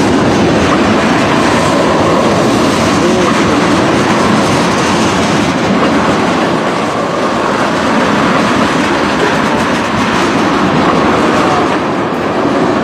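The cars of a long mixed-freight manifest train rolling steadily past at close range: wheels running over the rails.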